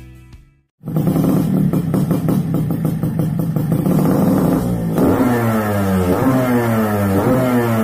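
Music fades out into a brief silence. Then a Yamaha RX King's two-stroke engine starts up loudly and runs, revving up and down repeatedly from about five seconds in.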